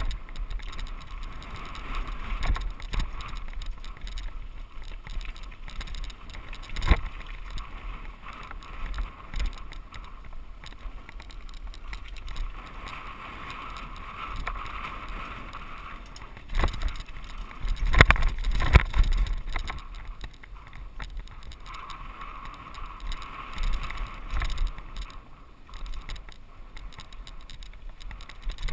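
Mountain bike rolling down a dirt singletrack, heard from a camera mounted on the ride: a steady rush of wind and tyre noise with the bike rattling. Sharp knocks come as it jolts over bumps, the loudest cluster about two-thirds of the way through.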